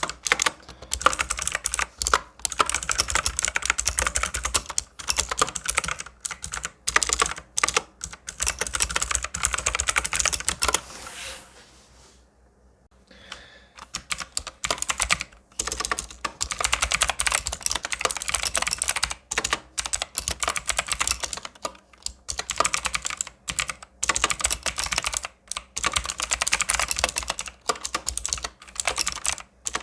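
Fast typing on an SPC Gear GK550 mechanical keyboard with clicky Kailh Blue switches, a dense run of key clicks. The typing breaks off about twelve seconds in and resumes a couple of seconds later: first with the bare switches, then with clear O-rings fitted under the keycaps to damp the clack.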